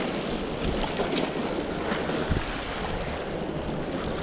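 Sea waves washing steadily at the shore, with wind rumbling on the microphone and a brief low bump a little over two seconds in.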